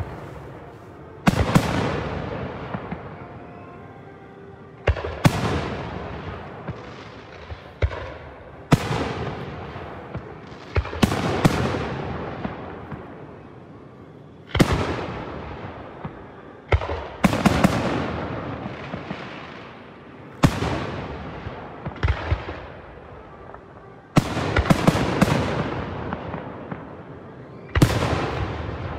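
Aerial fireworks shells bursting, with a sharp bang every two to four seconds and some in quick doubles and triples. Each bang is followed by a long, fading, echoing tail.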